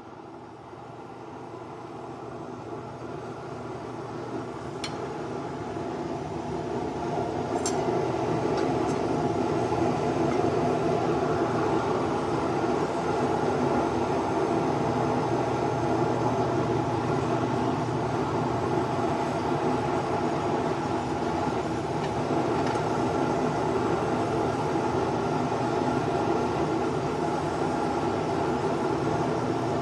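Gas forge running with a steady rumbling rush. It fades up over the first several seconds and then holds. A few faint metallic ticks come through in the first ten seconds.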